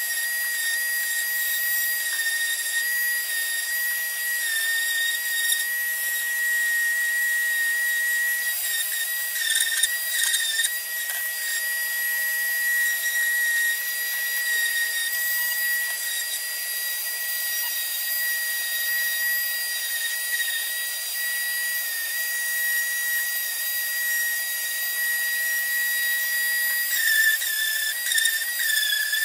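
Random orbital sander running with a shop vacuum drawing dust through it, a steady high whine with one strong tone, as it sands a fiberglass-and-epoxy surface. The whine wavers briefly near the end as the pad works the surface.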